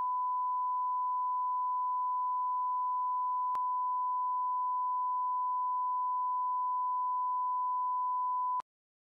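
Steady 1 kHz line-up reference tone, the test tone that runs with colour bars at the head of a broadcast tape. A faint click comes partway through, and the tone stops abruptly just before the end.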